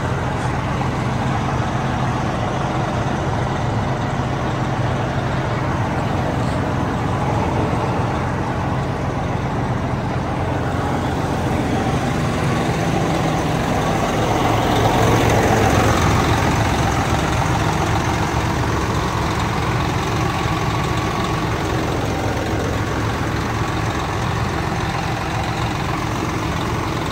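Truck engine running steadily while the truck drives, with a brief swell in level about halfway through.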